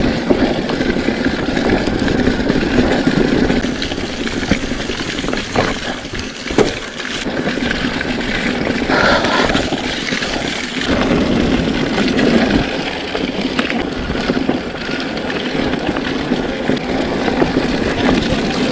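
Riding noise from a mountain bike on a trail: a steady rumble of wind buffeting the action camera's microphone and tyres running over the ground, with a few sharp knocks around the middle.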